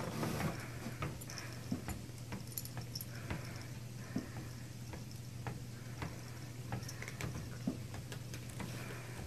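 Treadmill running with a steady low motor hum, with irregular sharp clicks and ticks over it.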